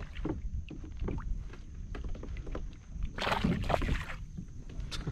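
Fishing kayak on choppy water: a steady low rumble of wind and water against the hull, with scattered small knocks of gear being handled and a brief rush of noise, like a splash, a little after three seconds in.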